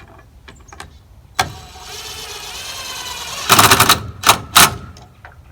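Power drill driving a screw into a wooden board: the motor starts with a whine about a second and a half in and runs steadily, then three short, loud bursts follow near the end as the screw goes in.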